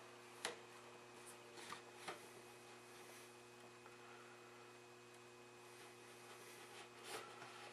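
Near silence: a steady faint hum, with a few faint, soft ticks here and there.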